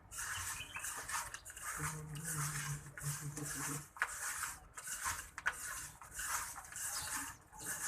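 Jaggery and herb remedy being mixed by hand: repeated rubbing, scraping strokes, roughly one every half second. A faint low hum sits underneath for about two seconds in the first half.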